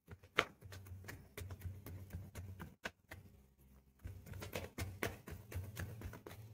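Tarot cards being handled and drawn from a deck: a quick run of small clicks, flicks and taps of card stock, over a low steady hum.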